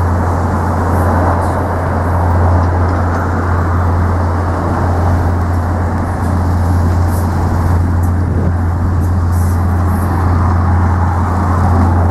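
Steady low rumble of road and engine noise inside a moving car, with a constant low hum underneath.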